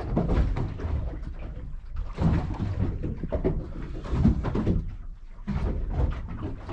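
Irregular knocks and bumps over a low rumble.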